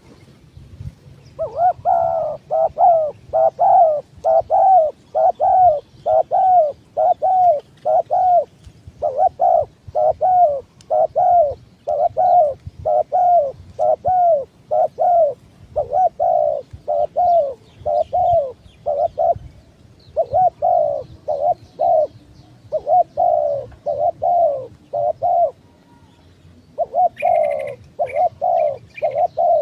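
Spotted dove cooing: a long, fast series of short coos, about two a second, broken by a few brief pauses. Near the end, higher chirps join in.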